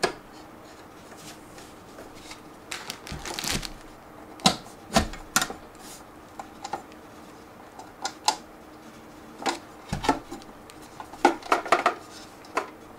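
Scattered clicks, taps and knocks of a four-bay hard-drive enclosure being handled, turned over and set down on a tabletop while its front cover is worked. A quick cluster of clicks near the end is the front cover latching back into place.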